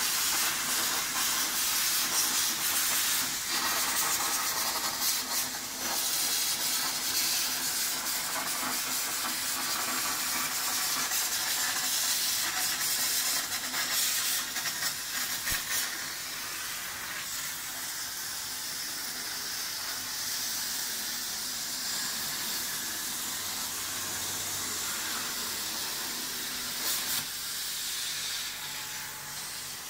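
CNC plasma cutter torch cutting steel plate, a steady hiss of the plasma arc and air jet. It gets somewhat quieter a little past halfway.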